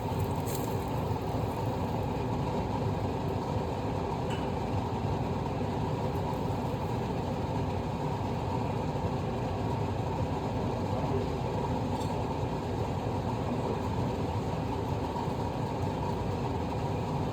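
Kitchen exhaust fan running steadily, a constant low rushing noise.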